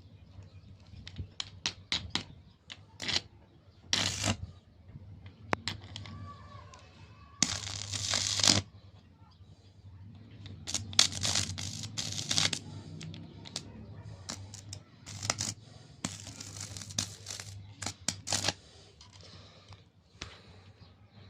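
Homemade arc welder built from fluorescent- and sodium-lamp ballast chokes in use: the electrode is struck repeatedly, with many sharp ticks and several bursts of arc crackling lasting a second or two each. A low steady hum from the ballasts runs underneath and grows while the arc burns.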